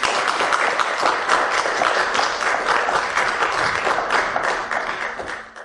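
Audience applauding: dense, many-handed clapping that tails off near the end.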